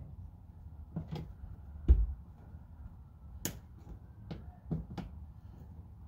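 Irregular sharp clicks and knocks from the plastic retaining clips and lower front fascia of a 2011 Jeep Grand Cherokee being wiggled and pried by hand inside the wheel well. There are about seven of them, the loudest a dull thump about two seconds in, over a low steady rumble.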